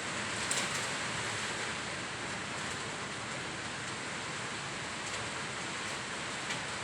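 Heavy typhoon rain and strong wind making a steady, dense hiss, with a couple of brief sharp ticks, one about half a second in and one near the end.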